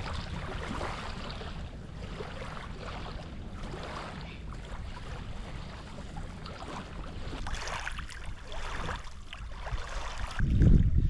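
Water lapping and wind at the riverbank, with small scattered handling noises. Near the end a gust buffets the microphone with a loud low rumble.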